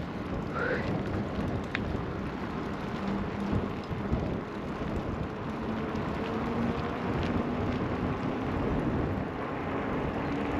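A steady rushing, rumbling noise, with a faint hum that slowly rises in pitch in the second half and a few light clicks.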